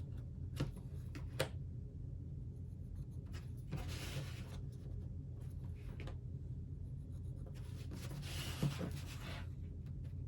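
Pencil marking on paper against a ruler: a few light taps, then two longer scratching strokes about four seconds and eight seconds in, over a low steady room hum.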